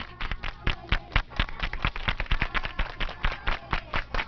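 A rapid, irregular series of sharp taps or knocks, several a second, with no speech over them.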